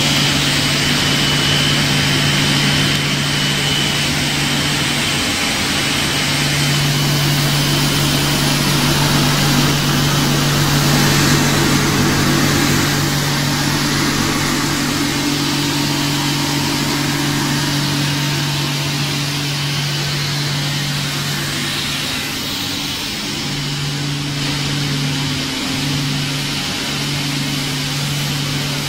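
Pet food extrusion line machinery running: a steady low motor hum over a continuous mechanical rush, the hum wavering briefly a few times near the end.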